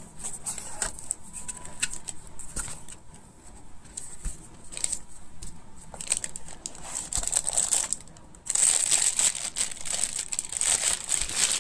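Packaging crinkling and rustling as it is unwrapped by hand: scattered crackles and taps at first, then louder, continuous crinkling from about eight and a half seconds in.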